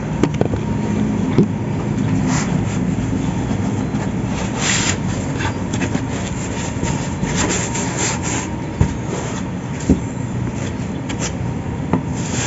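Packaging being handled: a grey LDPE foam sheet and a black protective bag rustling and scraping as they are lifted out of a laptop box, in short strokes over a steady background hum.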